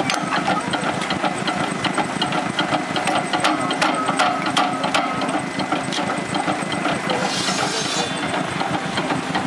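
Belt-driven flywheel kindling splitter running, its cleaver knocking repeatedly as a block of firewood is split into sticks, over the steady running of the engine that drives its flat belt. A brief hiss about seven seconds in.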